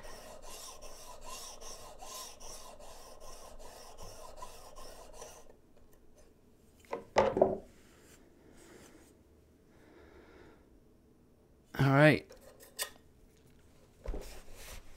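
Steel plane blade rubbed back and forth on a wet Trend diamond sharpening plate: a steady rasping stroke about two and a half times a second, lapping the blade's leading edge flat on its back, ruler trick. The strokes stop about five seconds in; after that come a short loud sound near seven seconds, a brief loud wavering pitched sound near twelve seconds, and a knock near the end.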